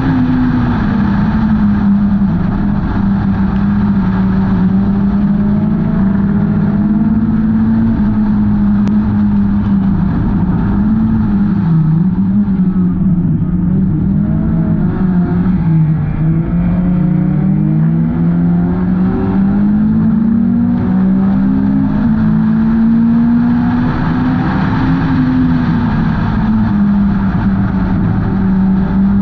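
A Hornet-class race car's four-cylinder engine running hard at race revs. Its pitch falls off for several seconds about halfway through, then climbs back up, as when the car lifts for a turn and accelerates down a straight.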